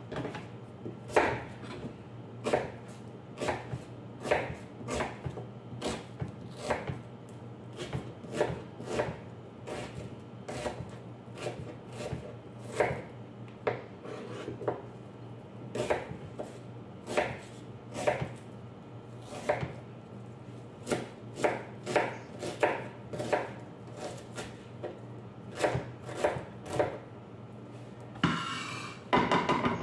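Kitchen knife chopping a red onion on a plastic cutting board: irregular sharp knocks, about one or two a second, with a brief noisier sound near the end.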